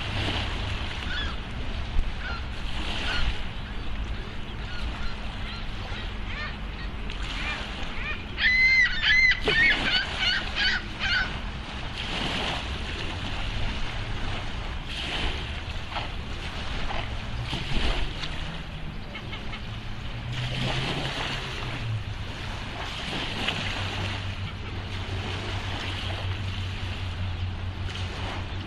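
Swan calling: a quick run of short, pitched calls lasting about three seconds near the middle, over a steady background of water noise and a low hum.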